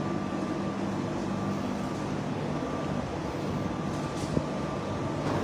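Steady mechanical drone: a constant low hum with a thin, faint high whine above it, as from machinery running.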